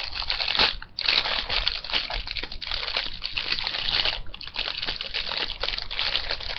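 Plastic candy packaging crinkling and rustling as it is worked open, nearly continuous, with two brief pauses, about a second in and about four seconds in.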